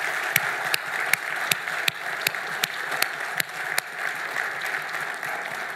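Audience applauding. One clapper near the microphone stands out with sharp, evenly spaced claps at about two or three a second for the first four seconds.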